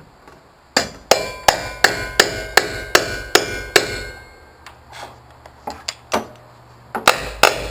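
Hammer driving a nail through a steel joist hanger: a run of about nine steady blows, two or three a second, each with a short metallic ring, then some lighter taps, then a few more hard blows near the end.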